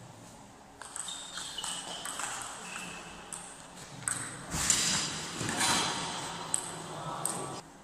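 Table tennis rally: the ball clicks sharply off rackets and table in a quick back-and-forth, with the ticks stopping just before the end as the point finishes.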